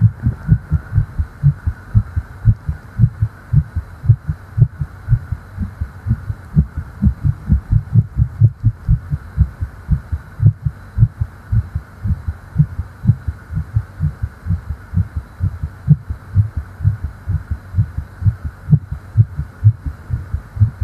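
Fast human heartbeat heard up close at the chest: a steady run of deep, low thumps at about three a second.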